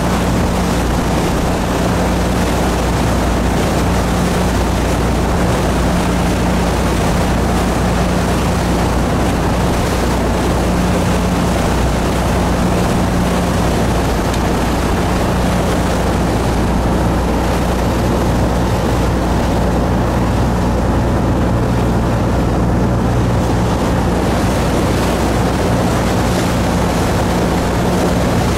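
Fishing boat's engine running steadily at cruising speed, a constant low drone under the rushing hiss of the wake and water along the hull.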